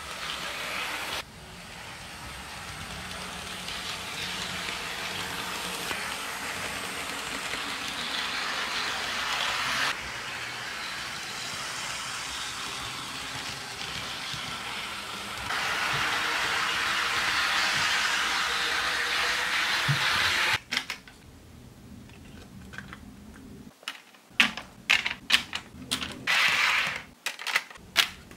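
HO scale model diesel locomotive (Athearn SD70ACu) running along sectional model track: steady rolling and small-motor noise. Near the end it gives way to a quick run of sharp plastic clicks and clacks as model freight cars are set onto the track by hand.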